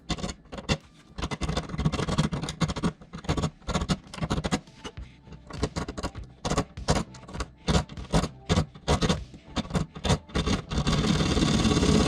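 A hand tool scraping and rasping at a rusted, stripped screw head in short, uneven strokes. Near the end a steady, continuous mechanical noise takes over.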